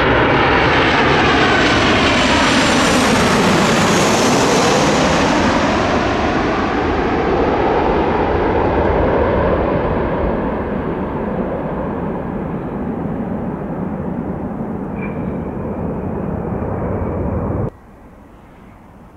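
Transavia Boeing 737-800 arriving to land, its CFM56-7B turbofans loud as it passes, with a whine that sweeps down in pitch, then slowly fading as it moves away. The sound cuts off suddenly near the end, leaving a much quieter background.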